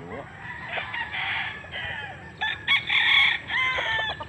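Roosters crowing: one crow about a second in, then a louder one from about halfway that runs almost to the end.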